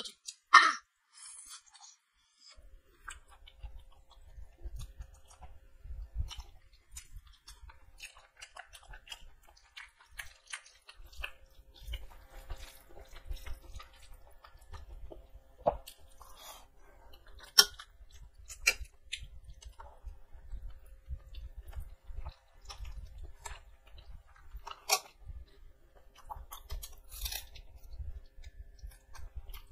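Close-miked mouth sounds of a person eating rice and chicken curry by hand: wet chewing and lip smacks, loudest about half a second in. There are scattered crisp crunches, with a bite of raw onion near the end.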